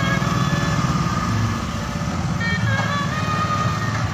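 Motorcycle engines running at low speed, with a fast, even low pulsing. Music plays faintly above it.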